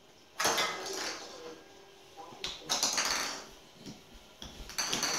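A small plastic toy ball clattering across a tile floor in three short bursts.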